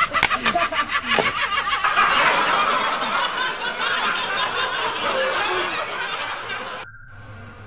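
Shrill laughter in quick pulses, giving way after a second or two to a dense, continuous shrill din that cuts off suddenly near the end, leaving a faint steady tone.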